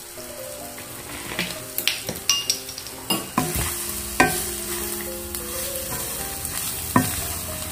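Minced beef frying and sizzling in coconut oil in a nonstick pan while a wooden spatula stirs and scrapes it, with several sharp knocks and scrapes of the spatula against the pan. This is the final browning stage, with the beef being fried until brown and crisp.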